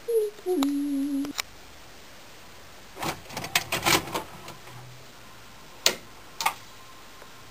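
A hummed voice note falling in pitch, levelling off and stopping about a second in. Then a quick cluster of clicks and clunks from a VCR's buttons and tape mechanism, followed by two more single clicks.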